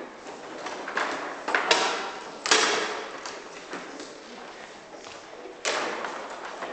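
Several sharp knocks and thuds, echoing in a large hall: four separate hits, the clearest about two and a half seconds in and near the end.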